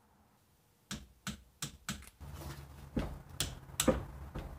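A string of sharp metallic clicks and taps from hand work on a Toyota 8-inch differential's carrier bearing adjusters and their locking bolts, with a ratchet on the bolts. About two seconds in, a low steady hum starts under the clicks.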